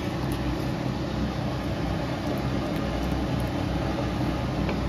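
Steady low rumble and hiss from the stovetop while thickening milk simmers in a pan being stirred with a spatula, with a faint scrape or click near the end.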